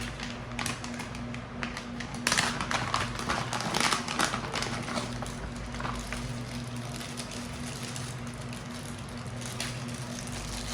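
Unboxed accessories and their packaging being handled, with a dense run of clicks and rustles about two to five seconds in and lighter ones after, over quiet background music.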